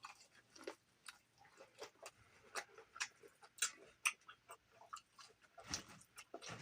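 A person chewing close to the microphone: irregular soft clicks and smacks of eating.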